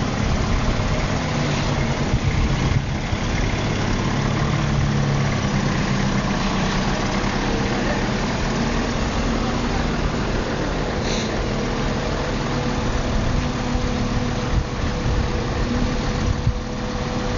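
Linde forklift's engine running steadily at low revs while the truck manoeuvres slowly.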